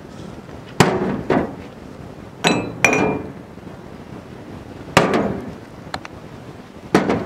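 Heavy glass mugs set down one after another on an aluminium tray: about six sharp knocks with a short glassy ringing clink after them, two of them close together a little past two seconds in.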